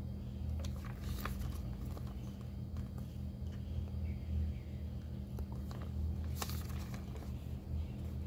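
Glossy paper brochure pages being handled and turned, with a few brief rustles and flicks, the strongest about a second in and again past six seconds, over a steady low hum.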